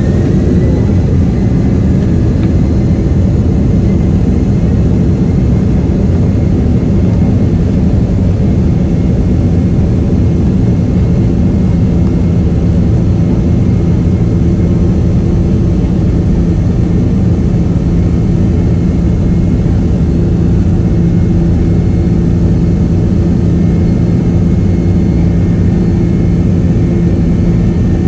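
Boeing 767-300ER's turbofan engines at takeoff power, heard from a cabin window seat by the wing: a loud, steady engine roar with a high whine that has just finished rising as the engines spool up.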